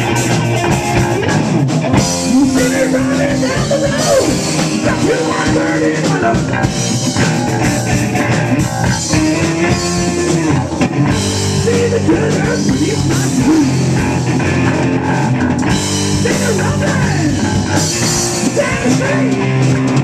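Rock band playing live: electric guitar, electric bass and drum kit, steadily loud.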